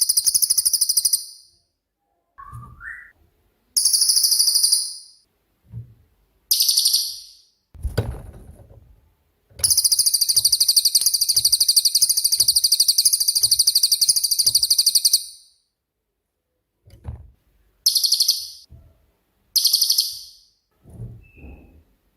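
Cililin bird singing in very high-pitched, rapid trilled bursts: several short ones and one long burst of about six seconds in the middle. A short low thump about eight seconds in.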